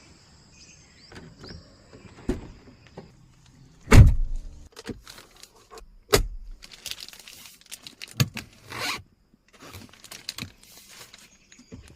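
Mahindra XUV700's doors and fittings being worked: a series of clunks and clicks, the loudest a heavy thump about four seconds in, with stretches of motorised whirring between them.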